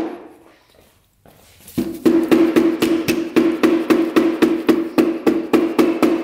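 Hammer blows on metal: a short pause, then a steady run of strikes at about three a second, each ringing at the same pitch. The hammering frees rusted, stuck parts on the 1986 Honda CR125's engine top end.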